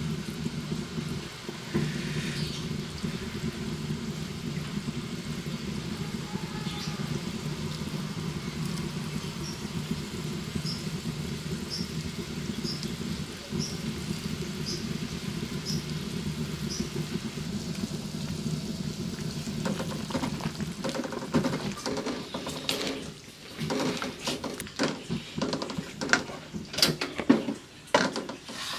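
A steady low hum, then from about twenty seconds in, irregular clatters and splashes of a wooden spatula stirring vegetable soup in a wok, the loudest near the end.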